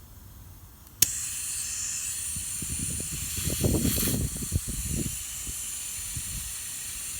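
Air hissing steadily out of a pickup truck tire as it is let down for off-road driving, starting with a click about a second in; some low knocks of handling partway through.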